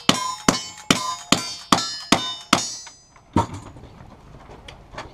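Rapid string of rifle shots from a lever-action rifle, seven in about two and a half seconds, each followed by the ringing clang of a steel target being hit. Then a single knock and light clatter.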